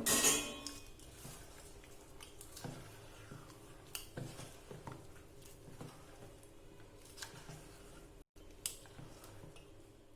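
Malpua batter of rice flour, mashed banana and cold milk being mixed in a bowl: soft wet stirring with scattered light knocks against the bowl, after a louder clatter right at the start.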